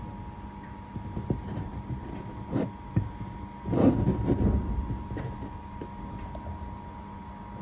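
Steady machine hum from the laser welding setup, with scattered clicks and a brief louder clatter about four seconds in.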